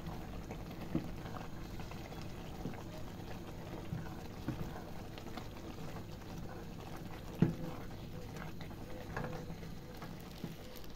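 Thick eggplant filling, thickened with semolina, bubbling in an enamel pot on a gas burner while a wooden spoon stirs it, with scattered soft scrapes and knocks of the spoon against the pot. The sharpest knock comes about seven and a half seconds in.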